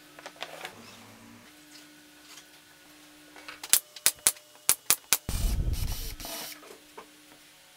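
Pneumatic brad nailer firing about six nails in quick succession into wood, then a cordless drill boring into the wood for about a second.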